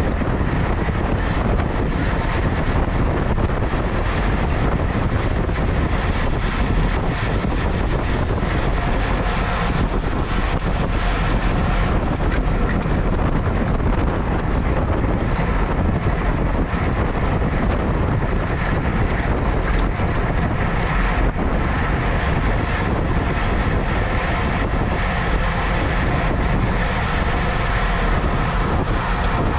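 Steady wind noise rushing over the microphone of a camera on a racing bicycle moving at speed in a pack of riders.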